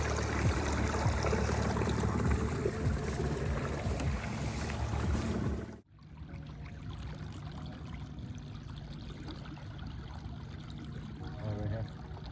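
Water rushing and splashing around a phone held at the river surface from a moving canoe. About six seconds in, the sound cuts off abruptly and turns muffled as the phone goes under water, leaving a steady low hum.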